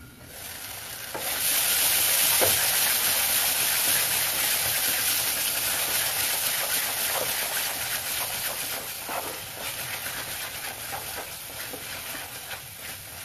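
Onion-tomato masala sizzling as it fries in mustard oil in a kadhai, with scattered spits and pops. The sizzle swells sharply about a second in, as the lid comes off, then slowly eases.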